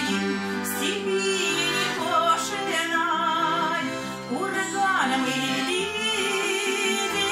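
A woman singing a Russian song with a wide vibrato, accompanied by an acoustic guitar and a button accordion.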